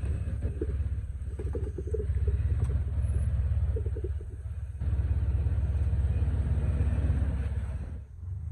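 Toyota FJ Cruiser's V6 engine rumbling low and slow as the truck crawls over boulders, with scattered clicks and crunches of tyres and rock over the first few seconds. The rumble falls away about eight seconds in.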